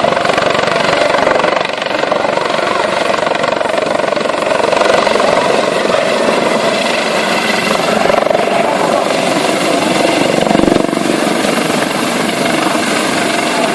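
Helicopter running steadily and loudly, a dense rotor and turbine noise with a low thump about ten and a half seconds in.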